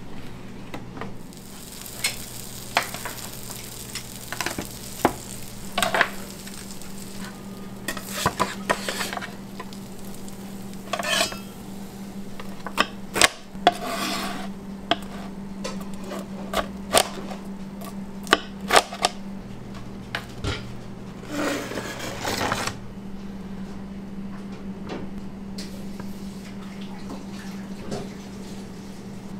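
Metal pizza pans and utensils clattering and clinking at irregular intervals in a pizza kitchen, over a steady low hum of kitchen equipment, with a couple of brief hissing noises.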